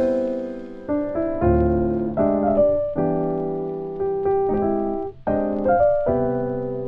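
Background piano music: chords struck one after another, each left to fade before the next.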